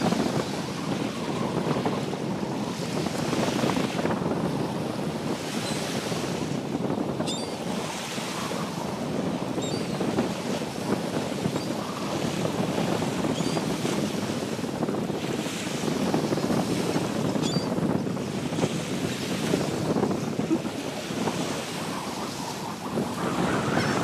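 Wind gusting across the microphone over the steady wash of surf on the shore, with a few faint short gull calls in the middle.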